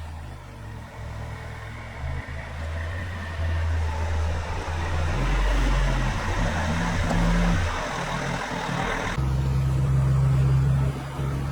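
Road vehicle driving: a low engine hum with tyre and road noise that builds and then cuts off abruptly about nine seconds in.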